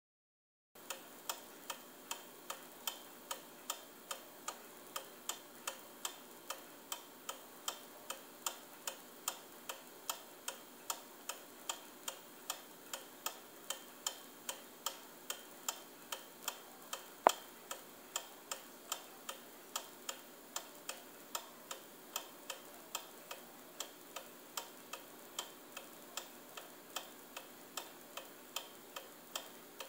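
New Haven pendulum clock movement with a Crumpler escapement, ticking steadily at about two ticks a second. One much sharper, louder click comes around the middle.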